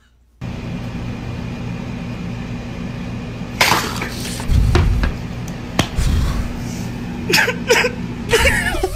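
A drink glass tipping over and clattering, about three and a half seconds in, followed by a dull thud and, near the end, several sharp knocks, over a steady low electrical hum.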